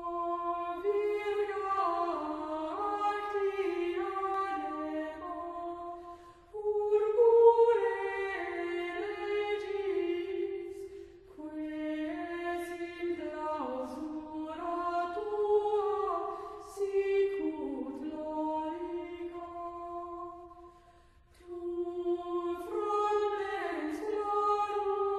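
Unaccompanied singing in long, slow phrases with a few short pauses between them.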